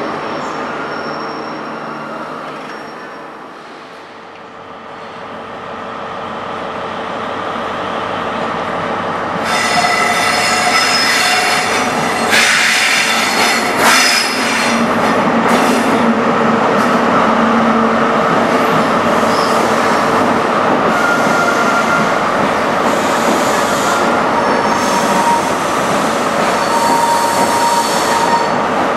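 A High Speed Train's sound fades away over the first few seconds. Then a Class 43 HST power car comes in loud with its diesel engine running and passes close by about 12 to 14 seconds in, and its Mark 3 coaches roll past with wheels squealing on the curved track.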